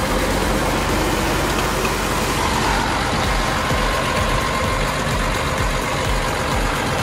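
Caterpillar D6R bulldozer's diesel engine running steadily, heard up close at the engine compartment.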